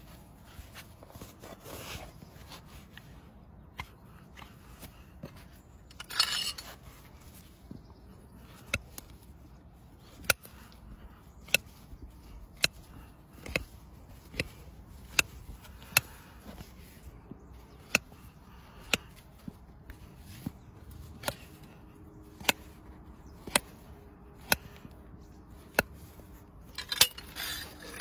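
Farrier's hand tools working on a horse's hoof: a run of sharp, light taps about once a second over a faint scraping background, with a brief scrape about six seconds in.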